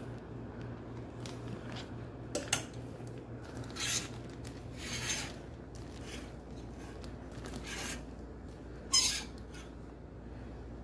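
Clear plastic garment bags on T-shirts crinkling and rustling as they are handled and flipped through on a rack: a handful of separate rustles, the loudest about two and a half seconds in and near the end, over a low steady hum.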